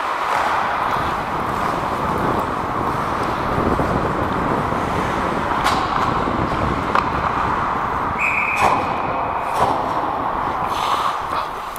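Ice hockey play heard close up: a steady scrape and hiss of skate blades on ice, with a few sharp clacks of sticks and puck. A short high steady tone sounds about eight seconds in.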